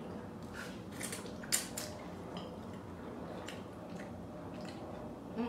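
Slurping and chewing of spicy instant noodles: a handful of short, wet slurps, the loudest about a second and a half in.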